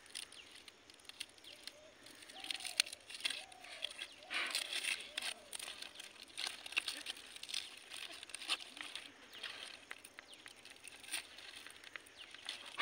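Hands breaking and peeling charred palm-frond wrapping off baked ragi dough: faint, irregular crackles and crunches of the burnt husk.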